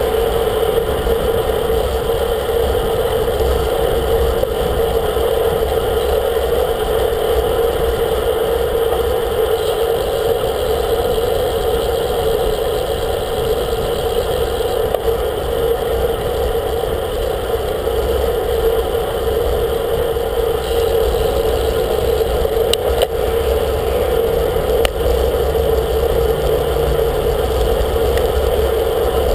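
Wind rushing over the microphone of a camera mounted on a road bike riding at speed, a steady low buffeting rumble under a constant hum, with a couple of faint clicks in the second half.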